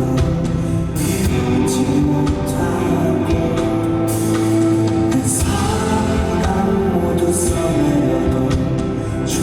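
Live rock band playing an instrumental stretch of a song: drums with cymbal hits over guitars and sustained chords, loud and continuous.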